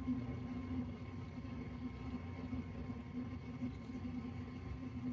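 Steady low hum of a running heater.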